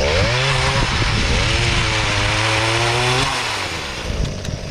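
Gas-powered pole saw revving up and cutting through a tree branch during pruning. The engine pitch dips briefly about a second in, climbs again and holds, then falls away a little after three seconds as the throttle is let off.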